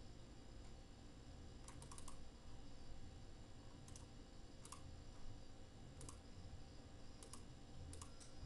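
Faint computer mouse clicks against low room hum: a quick run of clicks about two seconds in, then single clicks every second or so.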